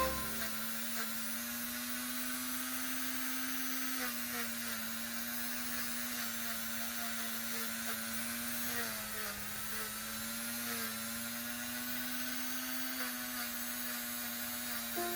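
Small handheld power tool's electric motor whirring steadily, its pitch sagging briefly about nine seconds in as it takes load.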